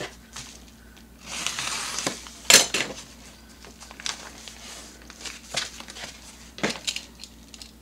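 Rustling and crinkling as a tightly sealed package is handled and worked open, with a sharp clack about two and a half seconds in and smaller clicks and rustles after it.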